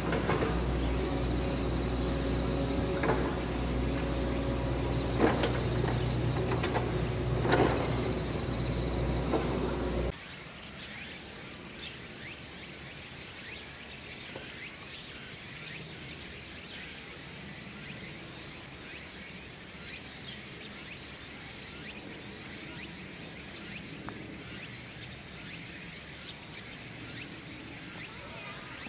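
Outdoor background noise: a steady low hum with a few short knocks for about the first ten seconds, then a sudden cut to quieter ambience with faint steady high chirring of insects.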